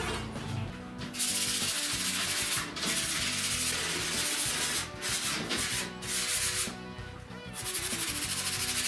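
Yellow sanding sponge rubbed by hand along a laminate board. It makes a dry scratchy hiss in long strokes with short pauses between them, then quicker, rhythmic strokes near the end.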